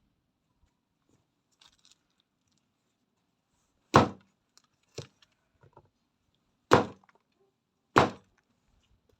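Heavy chopping on a wooden board: four loud, sharp chops spaced about one to three seconds apart, with a few faint knocks between them.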